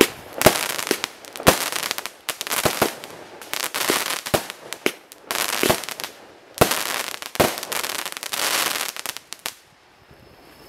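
Consumer firework cake firing shot after shot: a sharp bang about once a second as each shell bursts in the air, with a hiss after each one. The last burst dies away near the end.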